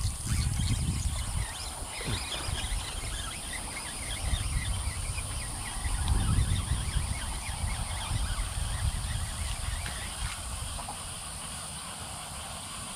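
Evening pondside chorus: a steady high insect drone with many short chirping calls scattered through it, over a low rumble on the microphone that swells about six seconds in.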